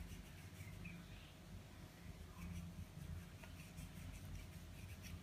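Very faint: light scratchy rustles of fingers sprinkling ground pepper over raw seer fish steaks, over a low steady hum.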